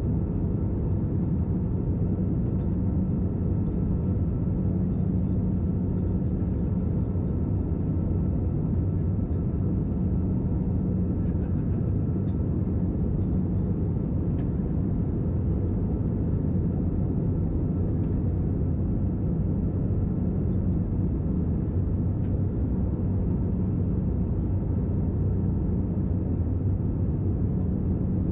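Steady cabin noise inside an Airbus A320 in flight: the even drone of its CFM56 engines under the rush of air past the fuselage, with a low, unchanging hum.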